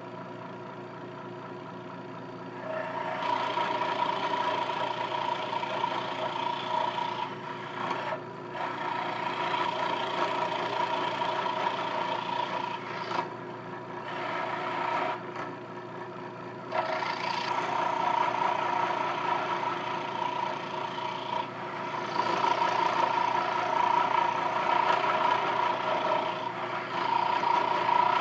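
Scroll saw running and making an inside cut through wood for a mortise. Its steady hum is joined by the cutting noise, which gets louder about three seconds in and eases off briefly several times as the cut pauses and resumes. The blade is clamped tight and runs without clacking.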